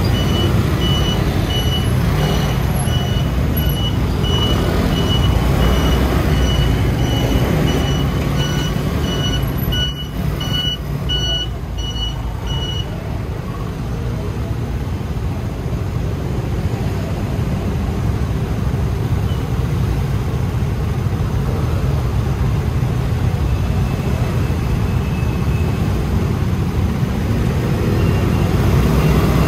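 Steady engine and road rumble of a scooter riding through city traffic. Over it, a nearby vehicle's electronic warning beeper sounds a regular series of high beeps, the kind trucks give when reversing, and stops about thirteen seconds in.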